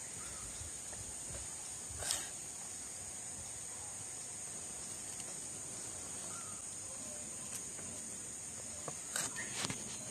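Steady high-pitched chorus of insects such as crickets, with a few soft knocks, one about two seconds in and a couple near the end, from cabbage leaves being handled on a wooden board.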